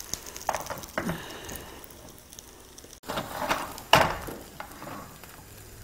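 Frying pan handled on a gas burner: light knocks and scrapes of pan and utensil as fried rice is shifted onto a thin egg sheet, over a faint sizzle. The sharpest knock comes about four seconds in.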